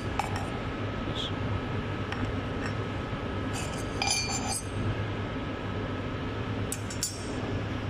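Scattered sharp metallic clinks and taps, with a cluster of ringing clinks about four seconds in and more near the end, over a steady low machine-shop hum.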